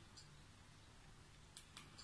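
Near silence with a few faint clicks of remote-control buttons being pressed: one just after the start and two close together near the end.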